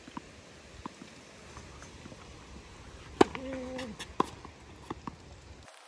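Tennis rally on an outdoor hard court: a sharp pop of a racket striking the ball about three seconds in, the loudest sound, then a brief held low tone and another crack about a second later. Fainter, farther ball strikes and bounces come earlier.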